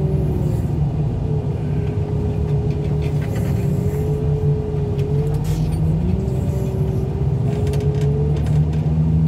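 Loader engine running steadily as the machine drives while carrying a junk car, its note stepping up slightly about six seconds in, with a few light knocks.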